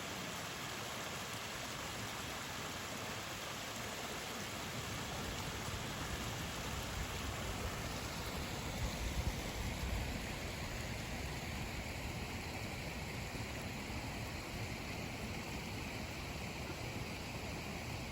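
Wind rushing over the microphone, a steady noise that grows heavier and rumbles in a stronger gust about nine seconds in.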